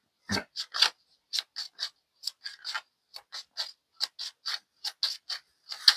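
Tarot cards being shuffled by hand: a quick, slightly uneven run of short crisp card slaps and flicks, about three to four a second.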